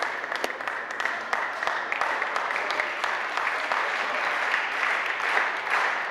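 Audience applauding a won point in a table tennis match, with a few sharp clicks of the ball off paddle and table in the first half-second as the rally ends.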